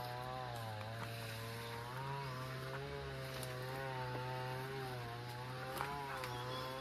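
An engine running steadily, its pitch wavering slightly up and down, with a couple of faint clicks.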